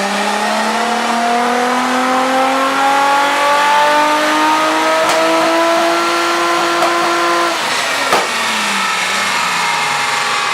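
Nissan R33 Skyline's RB25DET turbocharged straight-six under load on a dyno, revs climbing steadily for about seven and a half seconds in a pull, then the throttle lifted. A single sharp crack follows about half a second after lift-off as the revs fall away, on an engine being chased for misfires.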